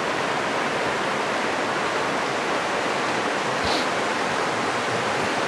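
Steady rush of river water running over shallow rapids.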